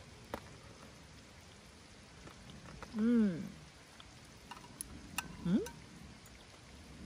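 Steady patter of rain, with a person humming a pleased 'mm' while chewing about three seconds in and again, shorter, a couple of seconds later, and a few faint clicks.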